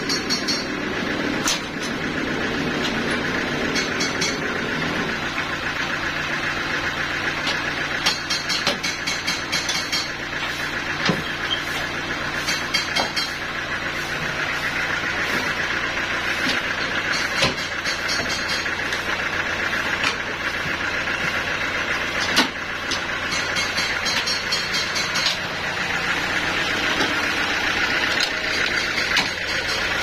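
Band sawmill running steadily, its blade cutting through a log of African acacia on the carriage, over a constant low engine hum. A few sharp knocks stand out here and there.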